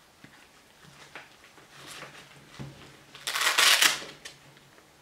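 A Sun-Sniper "The One" padded camera shoulder strap being handled: light rustles and clicks of nylon webbing and padding, then a louder scraping rush of under a second a little past halfway as the webbing is pulled through its length-adjustment buckle.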